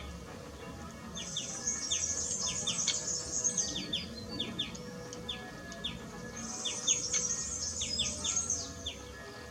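Birds calling: a steady run of short, high chirps, each falling quickly in pitch, with two stretches of dense, very high trilling, one starting about a second in and one about two-thirds of the way through.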